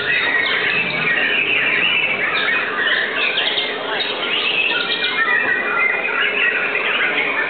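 White-rumped shamas (murai batu) singing: a dense, continuous run of quick whistles, chirps and trills.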